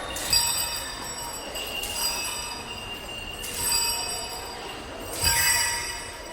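Cowbell struck four times, about a second and a half apart, each strike leaving a high metallic ringing that hangs on; the first and last strikes are the loudest.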